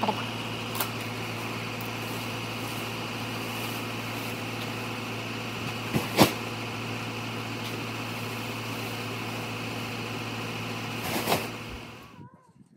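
Steady hum of an idling pickup truck, with dull thuds as sacks of horse feed are thrown onto its covered bed: two close together about six seconds in and one more near the end. The hum stops abruptly just before the end.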